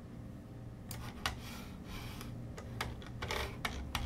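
Irregular clicks and taps of a computer mouse and keyboard, several in quick succession near the end, over a faint steady hum.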